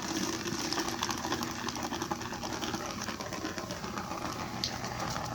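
A small motor whirring steadily with a low hum and a faint rattle over it.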